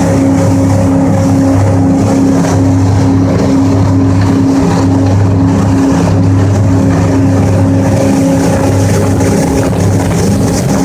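A 31 ft Tiara Open sport-fishing boat's engines running steadily at speed, a loud even drone, with wind and water rushing past the hull.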